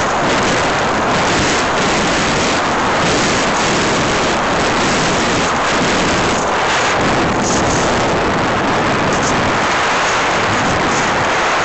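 Steady loud rush of wind and airframe noise on board a small aircraft in flight, with no distinct engine note standing out.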